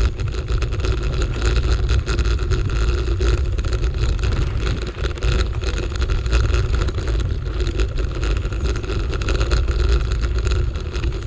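Wind rumbling on the microphone of a moving bicycle, with the rattle and crunch of the bike rolling over a rough dirt path.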